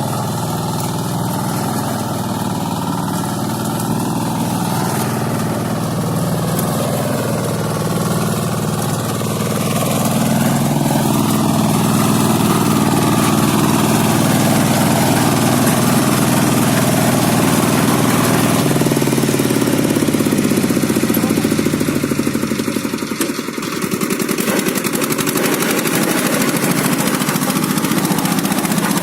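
Engine of a motorized rotary tiller running steadily while it tills, growing louder about ten seconds in and briefly dipping near the end.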